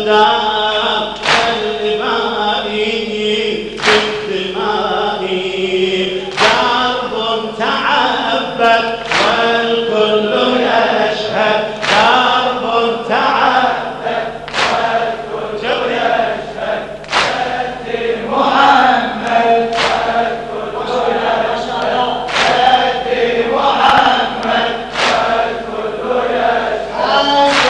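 Male reciters chanting a Shia latmiya lament through a microphone, with a large crowd of mourners chanting along. A sharp stroke, the crowd striking their chests in unison, falls about every two and a half seconds.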